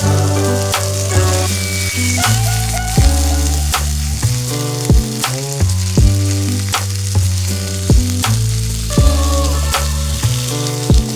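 Food sizzling as it fries in a pan, under background music with a steady beat and bass notes that step between pitches.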